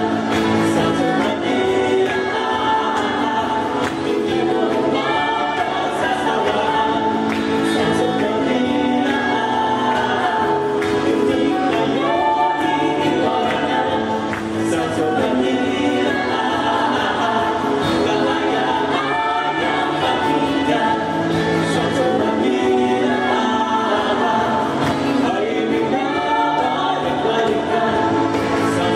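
Song performed live, with several voices singing together over the music.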